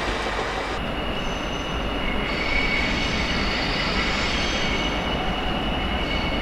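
Train rolling past with a steady rumble from its wheels on the rails, and a high steady squeal from the wheels that sets in about a second in.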